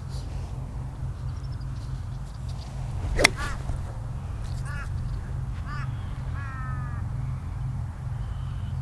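A golf club strikes a ball once with a sharp crack about three seconds in. A bird then calls four times in short arched calls, over a steady low rumble.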